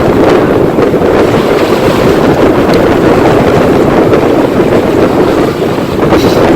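Loud, steady rush of wind on the microphone with the noise of a boat under way.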